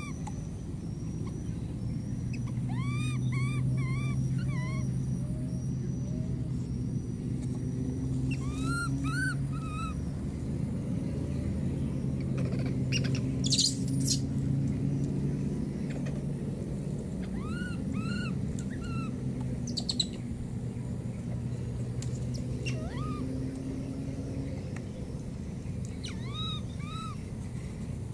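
Baby monkey giving short, high, arched coo calls in quick runs of two to five, each run a few seconds apart, over a steady low hum. A couple of sharp rustles about halfway through.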